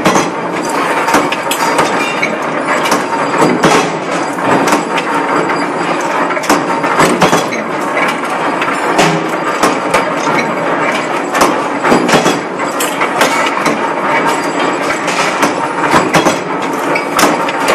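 Forging hammer striking red-hot steel bolt blanks: repeated sharp metallic knocks over a continuous loud machine clatter.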